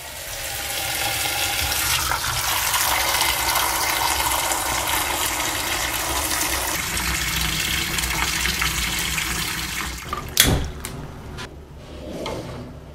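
Kitchen tap running into a pot of peeled potatoes, the water splashing as they are rinsed. The water stops about ten seconds in, followed by a sharp knock and a few lighter clunks as the metal pot is set down on the gas stove's grate.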